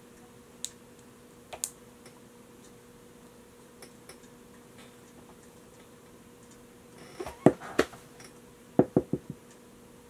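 Handling noise: a few faint clicks, then two quick clusters of sharp clicks and knocks about seven and nine seconds in, over a faint steady hum.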